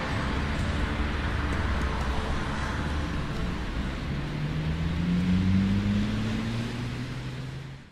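Ambient instrumental music: a low drone under a wash of noise, with a tone slowly rising in pitch in the second half, fading out at the end of the track.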